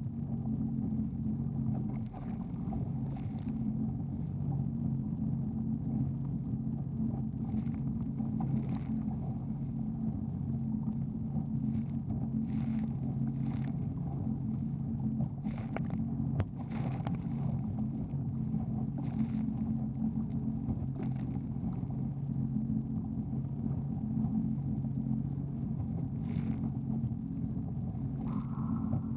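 Jet ski engine running steadily, a low even hum, with brief splashes of rough water now and then. A higher whine joins near the end.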